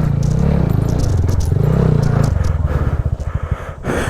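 TVS Apache RTR 200's single-cylinder engine revving up and down under load on rough ground, then settling to a lower, pulsing run in the last second or so. A brief sharp scraping noise comes near the end.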